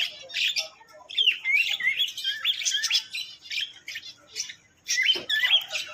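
Several small cage birds chirping and calling together: quick overlapping chirps and short bending calls, with a brief lull just before the end.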